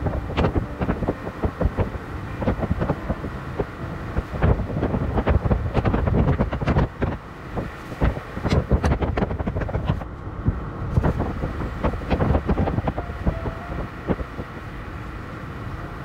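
Running noise of a moving vehicle heard from on board, with strong, irregular buffeting and knocks on the microphone. A faint brief tone comes in about thirteen seconds in.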